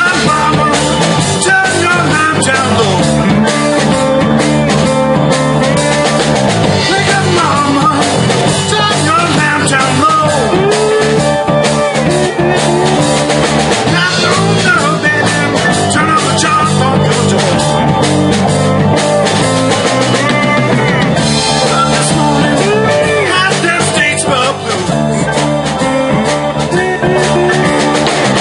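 A live rock band playing, with drum kit, electric guitars and keyboards.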